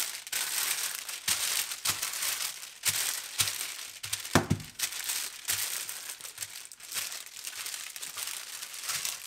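Baking paper crinkling and rustling as hands press it firmly down onto a layer of muesli-bar mixture in a baking tray, with irregular dull thumps; the loudest thump comes about four and a half seconds in.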